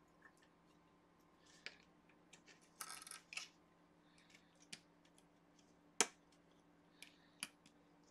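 Small plastic LEGO minifigure parts clicking and snapping as they are pressed together by hand, a few scattered clicks with a brief scratchy handling sound about three seconds in and the sharpest snap about six seconds in.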